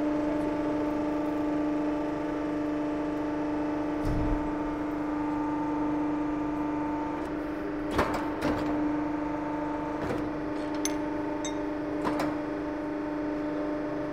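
Hydraulic mandrel tube bender bending a fitting tube: a steady hum from the machine's hydraulic drive, with a low thump about four seconds in and several sharp metal clunks around eight, ten and twelve seconds in as the bend is made and the die is opened.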